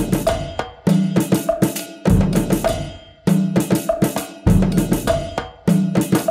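Outro music with a percussion-led beat: clusters of sharp struck hits in a phrase that repeats about every 1.2 seconds, over a deep bass.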